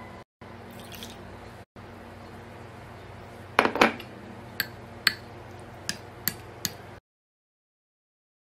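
Tahini sauce being stirred in a glass bowl: a soft wet scrape with a cluster of knocks about three and a half seconds in, then five sharp clinks of the utensil against the glass, over a steady low hum. The sound cuts off about seven seconds in.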